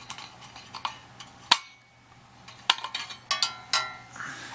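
Clicks, clinks and knocks of metal and glass being handled as the projection lamp is worked out of a DeJur 750 film projector. One sharp knock comes about a second and a half in, then a quick run of clinks with brief ringing about three to four seconds in.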